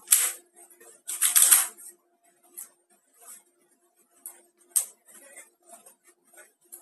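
Two brief rustling noises near the start and scattered faint clicks, one sharper click near the end, over a faint steady low hum.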